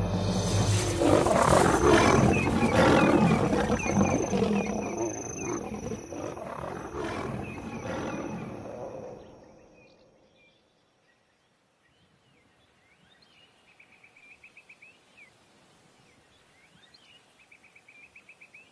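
Lions snarling and roaring in a fight, the nomadic males attacking the pride: loud and continuous for about nine seconds, then fading out. Faint trilling calls come twice near the end.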